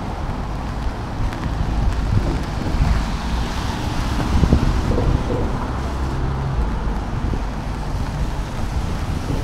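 Wind buffeting the microphone over street traffic on a rain-wet street, with a low engine hum beneath and a swell of hiss near the middle.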